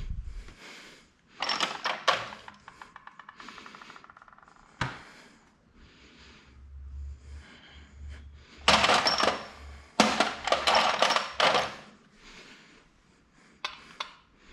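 Hand tools working motorcycle bolts: a ratchet clicking in a fast run that fades out, single knocks of metal tools, and a stretch of loud clattering and handling noise near the end as tools and parts are moved.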